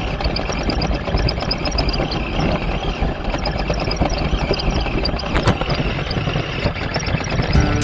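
Vintage Kyosho Blizzard radio-controlled snow cat running, its electric motor and tracks making a steady whir with faint rapid ticking.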